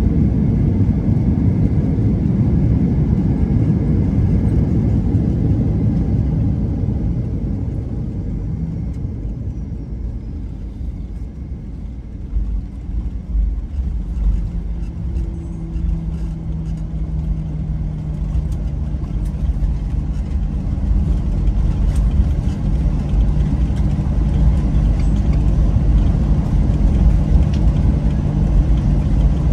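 Cabin noise aboard a Boeing 737-900ER on landing: the steady rumble of its CFM56 engines and airflow eases off, then a rough, bumpy rumble of the wheels on the runway starts about twelve seconds in. From there a steady engine tone holds while the noise slowly grows louder.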